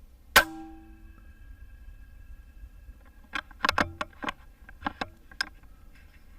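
A single shot from an Altaros M24 PCP air rifle: one sharp crack with a brief metallic ring after it. About three seconds later comes a run of sharp metallic clicks and clacks from handling the rifle.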